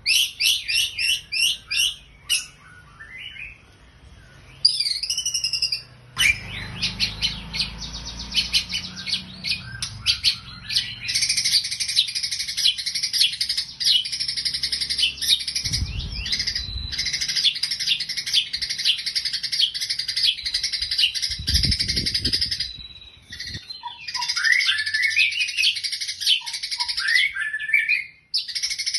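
White-rumped shama (murai batu) singing in long runs of rapid chirping notes, with chattering sparrow-like phrases mimicking the Eurasian tree sparrow. Two brief low thumps are heard, about halfway through and again some seconds later.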